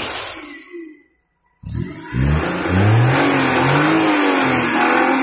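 Maruti Suzuki Alto's three-cylinder petrol engine running again once its ECU power supply was restored. It cuts out briefly about a second in, then comes back with its pitch rising and bending before it holds steady.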